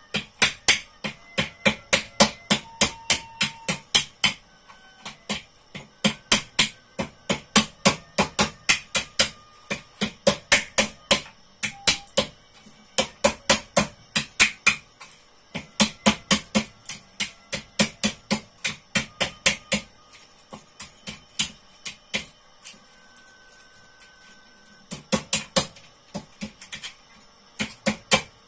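Hammer blows cracking fresh walnuts laid under a folded tea towel in a thick wooden dish, struck in quick runs of about three a second with a couple of short pauses.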